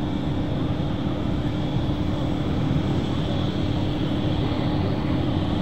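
North American T-28 Trojan flying a display overhead: the steady drone of its radial engine and propeller.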